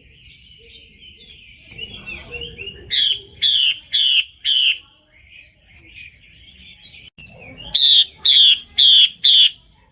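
Female hwamei (Chinese melodious laughingthrush) calling: a soft, running twitter broken twice by a run of four loud notes, each sliding down in pitch, about half a second apart.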